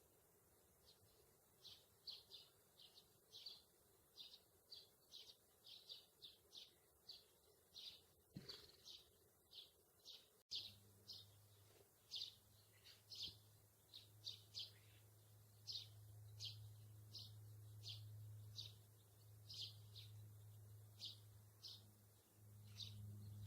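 A small bird chirping over and over, faintly: short, high chirps about two a second. About halfway through, a steady low hum comes in under the chirps.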